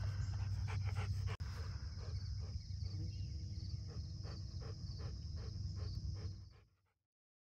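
A Rottweiler panting with its mouth open, about three quick breaths a second, over a steady low rumble. It fades out near the end.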